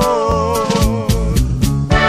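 Norteño music, instrumental: a button accordion plays a melody with a wavering, vibrato tone over a steady drum beat and bouncing bass notes.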